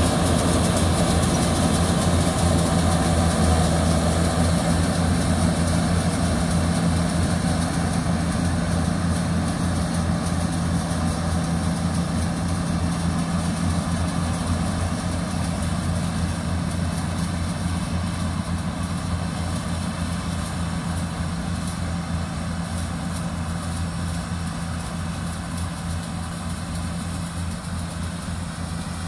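Yanmar rice combine harvester running steadily as it harvests, a constant low engine hum that slowly fades as the machine moves away.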